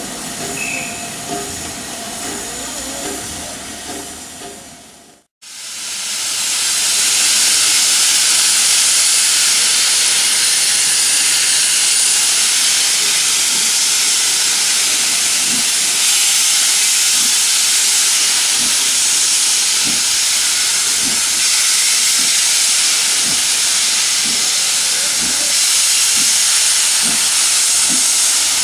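Steam locomotive LMS Princess Royal class Pacific No. 6201 Princess Elizabeth standing with steam up, letting off a loud, steady hiss of escaping steam. The hiss comes in after a brief drop-out about five seconds in.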